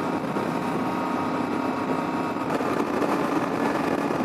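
Yamaha Ténéré 700's 689 cc parallel-twin engine running steadily while riding on the freeway, mixed with steady wind noise on the microphone.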